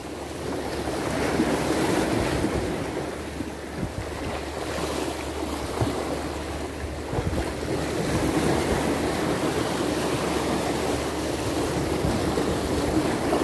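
Sea waves washing against the shore, a steady rushing that swells and eases; the sea is somewhat choppy but calm. Wind rumbles on the microphone underneath.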